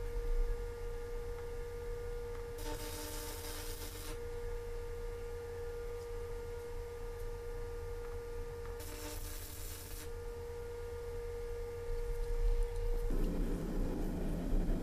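Two bursts of stick-welding arc crackle, each lasting a second or so, as a strip of carbon steel is tack welded to a horseshoe, over a steady hum. Near the end the hum gives way to the rushing of a gas forge running.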